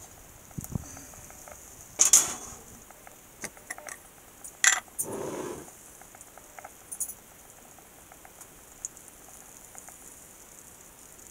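Clanks and knocks of a cast iron skillet and metal spatula being handled on a gas stove's grates, with a loud clatter about two seconds in and another sharp knock with a short scrape about four and a half seconds in, then a few light ticks.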